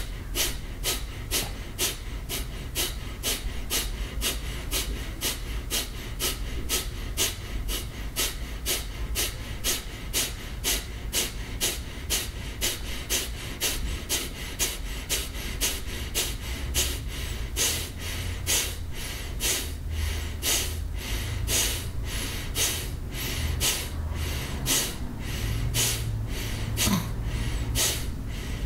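A person doing Kapalabhati breathing: short, forceful exhalations pushed out through the nose by snapping in the abdomen, each inhale passive and quiet. About two to three sharp puffs a second, in an even rhythm that keeps going throughout.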